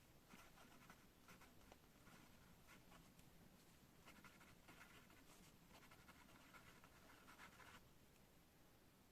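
Pen writing on paper: faint scratching strokes in short runs with brief pauses, stopping near the end.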